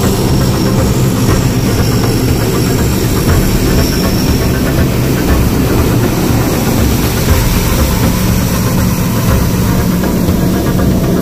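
C-130 Hercules's four turboprop engines running on the flightline: a loud, steady drone with a constant low hum.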